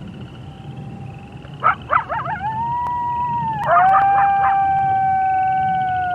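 Coyotes howling and yipping: a burst of quick yips about a second and a half in, then a long steady howl, then a second burst of yips. Several long howls follow, held together at different pitches and dropping away near the end, over a steady chirring of crickets.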